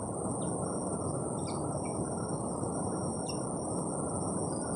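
Rural outdoor ambience: a steady high-pitched insect drone over a low background hiss, with a few short bird chirps scattered through.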